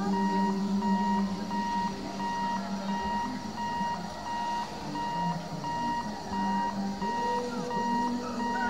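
Electronic warning beeper sounding at a steady high pitch, about two beeps a second, with a train's horn sounding low in the background at times.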